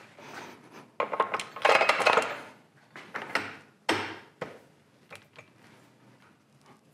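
Metal clinking and knocking as a Sky Hook portable crane boom and its hoist chain are handled and seated onto a lathe's tool post dovetail. A dense run of clinks and rattles comes about a second in, then a few separate knocks, fading to light ticks.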